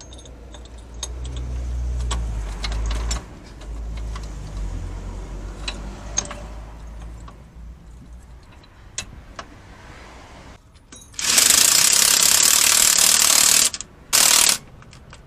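Hand tools clicking and ratcheting on a three-wheeler's gearbox, over a low rumble for the first three seconds. Then two loud bursts of hissing noise, the first about eleven seconds in and lasting over two seconds, the second short, near the end.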